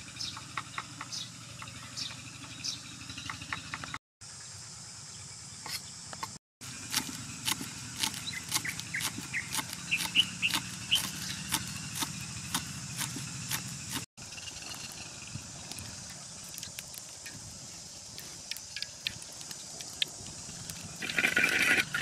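A cleaver chops garlic and spring onions on a wooden chopping board in a run of quick knocks, densest in the middle, over a steady background of insects. About a second before the end comes louder sizzling as oil is stirred in a hot wok.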